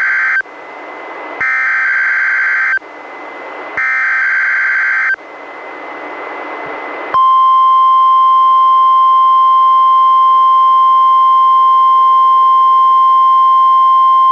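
NOAA Weather Radio Required Weekly Test signal on a weather radio: the end of the first and then two more of the three SAME digital header bursts, harsh warbling data screeches about a second and a half long with radio hiss swelling between them. About seven seconds in, the steady 1050 Hz warning alarm tone starts and holds.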